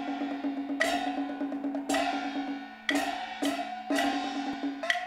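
Traditional Chinese opera percussion for a Taiwanese hand puppet show: sharp wood block clicks over ringing strikes about once a second, the strikes coming a little closer together near the end.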